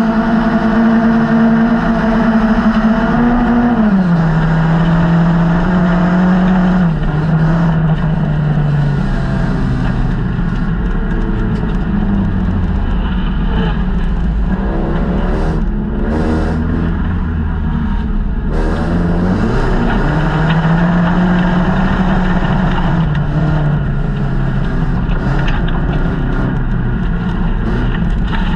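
Folkrace car's engine heard from inside its stripped-out cabin while racing in a heat: a steady high note for the first few seconds, then dropping in pitch and climbing again as the car gathers speed.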